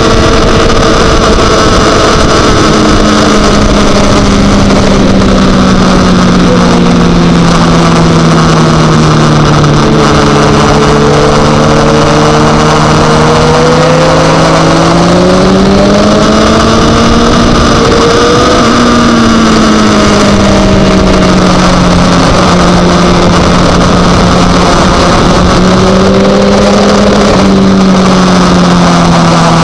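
Supersport racing motorcycle engine at race speed over loud, steady wind rush on the onboard microphone. The engine note sinks slowly over the first half, climbs about halfway through, drops again a few seconds later and falls once more near the end as the bike rolls off for a corner.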